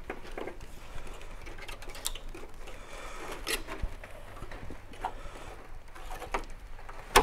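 Faint, irregular clicks and scrapes of a knife cutting through the adhesive bead that bonds a van's window glass, with one sharp click near the end.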